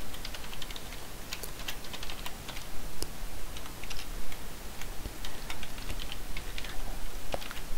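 Typing on a computer keyboard: a run of light key clicks at an irregular pace.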